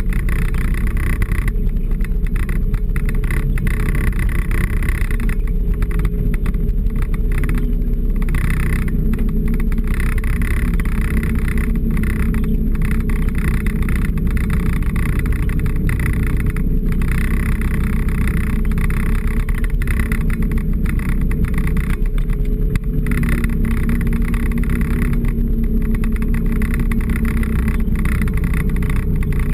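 Engine of a small off-road vehicle running at steady trail speed, a continuous drone, mixed with wind rushing over the hood-mounted microphone.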